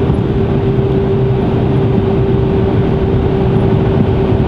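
Mercedes-Benz Actros truck driving at steady cruising speed, heard from inside the cab: a constant low engine and road rumble with one held steady tone that fades near the end.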